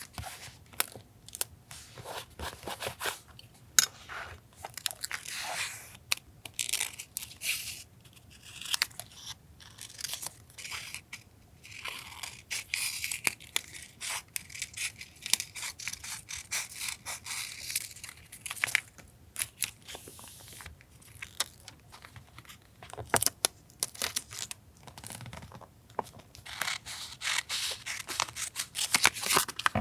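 Paper being handled for a collage journal: rustling and tearing, with small taps and clicks in between.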